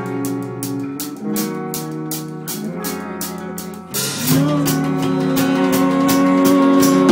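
Live rock band playing: guitar over a drum kit with steady, evenly spaced cymbal strokes. About four seconds in the music gets louder and a long held note comes in.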